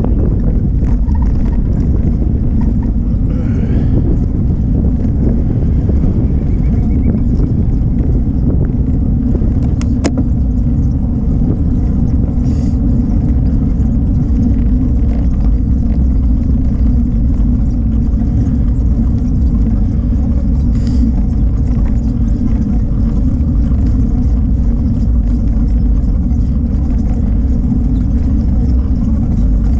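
Steady low rumble of wind buffeting a bicycle-mounted camera's microphone, mixed with the rolling noise of a bicycle on a paved path. A single sharp click about ten seconds in.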